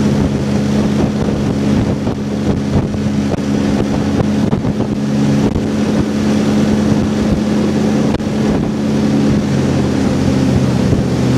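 Small aluminium boat's outboard motor running steadily at cruising speed, a constant drone, with wind buffeting the microphone as the boat moves.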